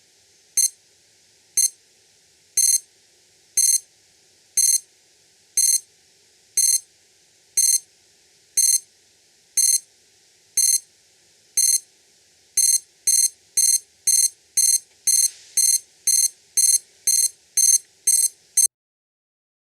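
Acctim Alta alarm clock's crescendo alarm beeping high-pitched. The first few beeps are short, about once a second, then they get longer. About twelve seconds in they speed up to roughly two and a half beeps a second, and they cut off suddenly near the end.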